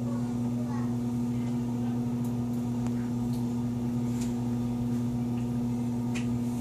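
Steady electrical hum, a low tone with several overtones, with a few faint ticks scattered through it.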